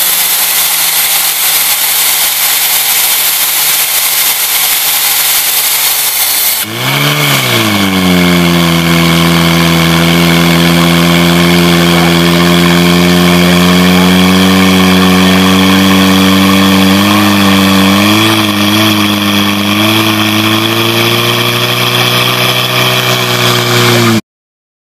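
Portable fire pump engine running at full throttle: loud and noisy for the first six or seven seconds, then it dips and swoops in pitch and settles into a steady drone, wavering briefly near the end before cutting off suddenly.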